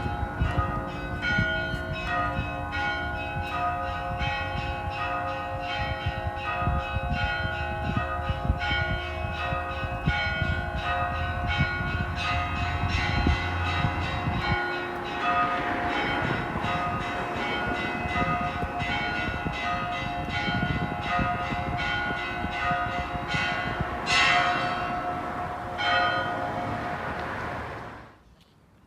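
Church bells ringing a festive Easter peal: many bells of different pitches struck in quick succession, their tones ringing on over one another. The ringing cuts off abruptly near the end.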